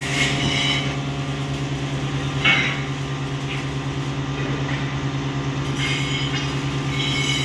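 A steady low machine hum with a fast, even pulse, with a few short scuffs and a knock about two and a half seconds in.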